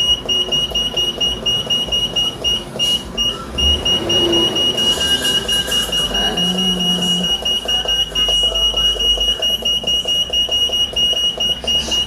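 Heat press digital controller's buzzer beeping rapidly and steadily, about four high beeps a second, as a setting button is held down to step the time value. There is a brief break about three seconds in.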